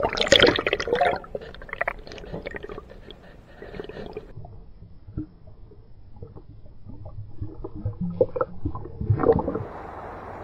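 River water splashing and gurgling as a fish is lowered into it by hand, then a muffled underwater stretch with faint clicks, heard through a microphone dipped below the surface. Splashing picks up again near the end.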